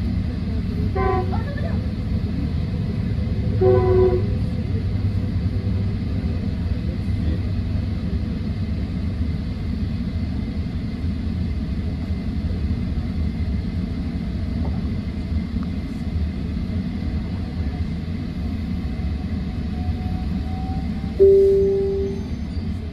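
Steady low rumble of diesel locomotives at a station platform, with two brief horn toots in the first few seconds and a louder, sharp-starting horn sound near the end that fades away over about a second.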